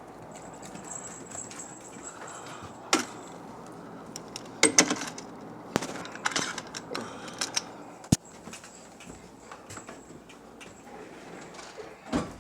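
Scattered knocks and clicks, such as handling or door sounds, with a cluster about five seconds in and a sharp click about eight seconds in, over steady background noise.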